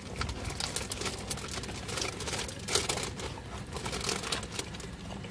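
Close-up chewing of crispy fried chicken strips: irregular wet clicks and crackles from the mouth, over a steady low rumble.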